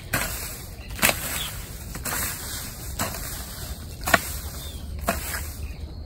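Long-handled hoe chopping into soil and weedy roots around arrowroot clumps, one strike about every second.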